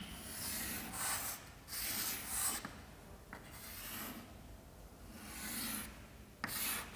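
Chalk drawing on a chalkboard: a series of short hissing strokes, each under a second long, as lines of a diagram are drawn.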